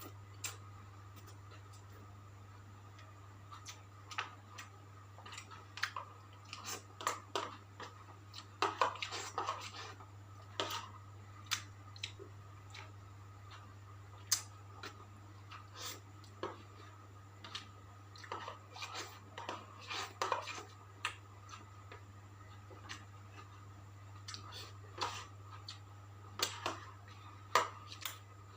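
A person eating fried chicken with sambal close to the microphone: irregular chewing with short wet mouth clicks and smacks, over a steady low hum.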